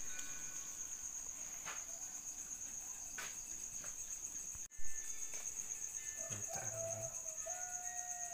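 Insects chirring in a steady high-pitched drone with a fast pulsing beat. About six seconds in, a rooster crows once in a long drawn-out call.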